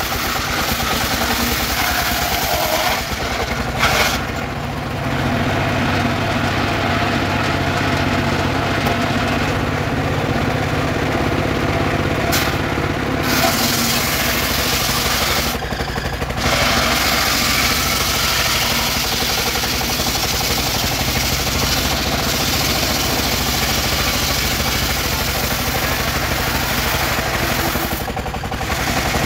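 Engine-driven mobile circular sawmill ripping a weru log lengthwise. The engine runs steadily under load while the blade cuts. The cutting noise dips briefly several times as the log is pushed through and repositioned.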